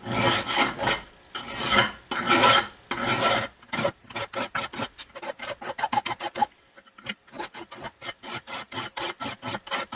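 A finer hand file rasping across the edge of a 3.2 mm aluminium plate clamped in a vise, cleaning up the edge after coarse filing. A few long, slow strokes give way about four seconds in to quick short strokes, about four a second, with a brief pause about seven seconds in.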